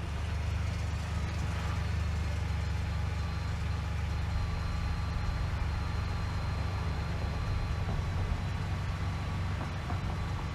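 Vehicle engine idling, a steady low rumble with no change.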